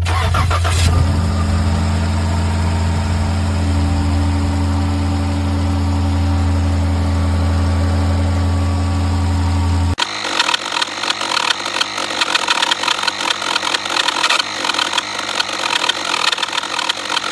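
Car engine idling steadily. About ten seconds in the sound cuts abruptly to a rougher, fluttering engine sound, louder in the upper range.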